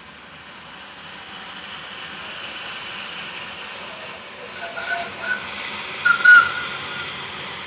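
Small steam locomotive running on the line, a steady noisy rush with steam hiss that builds slowly. A few short high-pitched sounds cut in about five and six seconds in.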